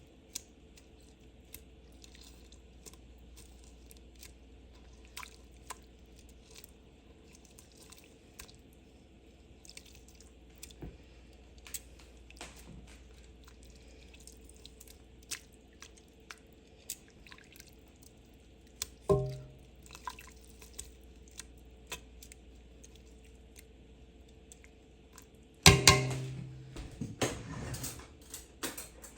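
Cooked chicken being shredded with metal utensils: faint wet squishing and scattered light clicks of metal on metal. A single ringing clang comes about two-thirds of the way through, and a louder clatter of dishes or pans comes near the end.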